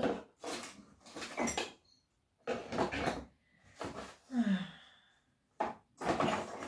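Rummaging through a cardboard box of Christmas decorations: repeated bursts of rustling and scraping of cardboard and packaging as things are handled.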